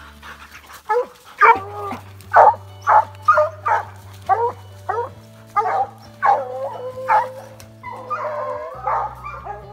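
A pack of hounds barking and baying, one quick call after another with pitches that bend, the voices crowding and overlapping near the end. Steady background music chords sit underneath.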